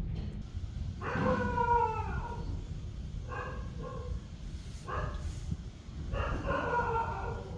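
A pet animal calling four times, drawn-out pitched cries, the first and longest falling in pitch, over a steady low rumble.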